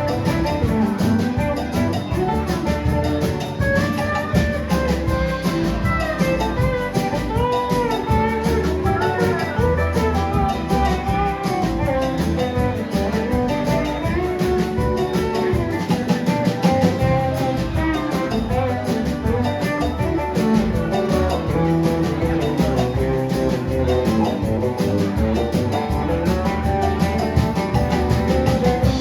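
Band music: guitar melody lines over bass and drums, playing steadily.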